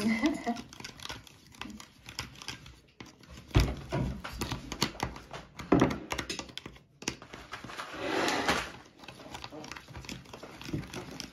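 Spoon stirring slime mix in a plastic mixing cup: irregular scraping and clicking, with two louder knocks about three and a half and six seconds in.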